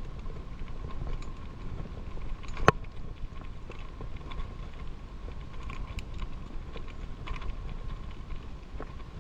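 Bicycle rolling over a rough dirt trail: scattered rattling clicks from the bike over a low rumble, with one sharp knock about two and a half seconds in.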